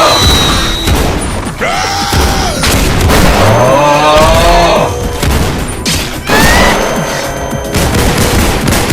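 Gunfire and impacts from an animated shootout over music, with short wavering pitched meme sound effects cutting in a few times.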